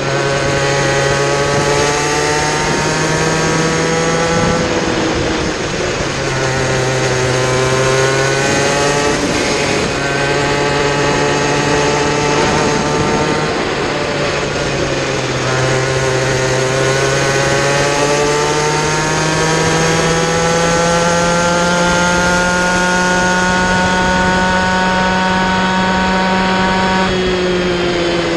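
Kid Kart's small two-stroke engine racing at full throttle, its pitch climbing on the straights and dropping when the driver lifts for corners, several times over; the longest climb comes in the second half, ending in a sharp drop near the end.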